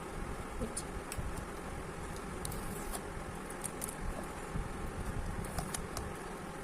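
Faint scattered clicks and light rustles of a smartwatch box being opened and its contents handled, over a low steady background rumble.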